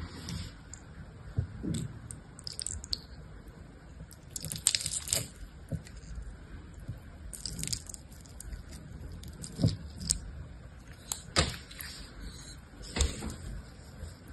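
Garlic press squeezing a soft green gel through its perforated plate: wet squishing and crackling, with irregular sharp clicks from the press and fingers.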